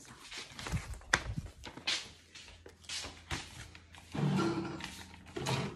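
Music with percussive clicks and knocks, and a pitched tone entering about four seconds in.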